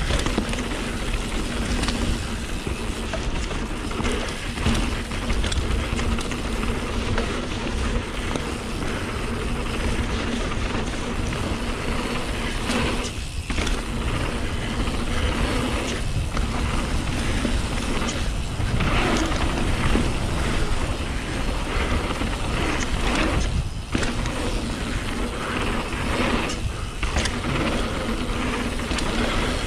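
2018 YT Capra mountain bike running fast down a dirt jump trail: steady tyre roar on packed dirt, chain and frame rattle, and wind on the chin-mounted camera, with a few brief lulls in the noise.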